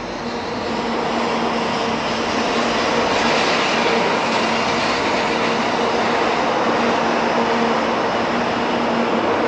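Eight-car 500 series Shinkansen passing through a station at high speed without stopping: a loud rushing noise of air and wheels on rail that builds over the first few seconds, then holds steady as the cars go by, with a faint steady hum beneath.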